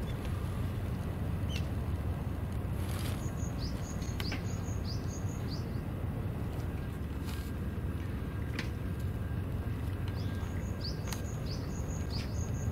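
A small bird calling in two bouts of quick, short, high chirps that slide down in pitch, over a steady low outdoor rumble.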